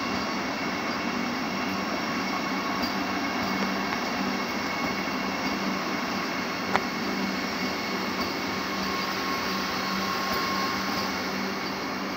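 Vande Bharat Express electric trainset rolling past on its arrival: a steady rumble of wheels and coaches with a faint steady hum, and one sharp click about seven seconds in.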